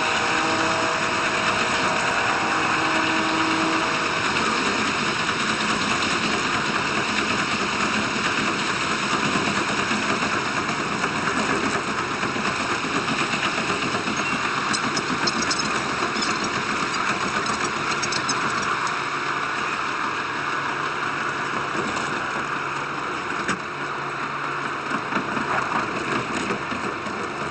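Diesel railcar running along the line: steady engine drone mixed with the wheels' rolling noise on the rails.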